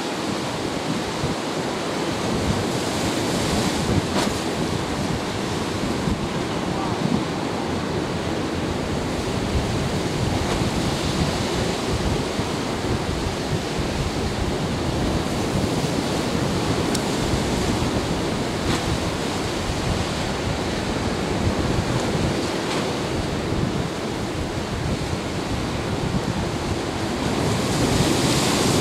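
Wind blowing across the microphone over the steady wash of rough, choppy sea.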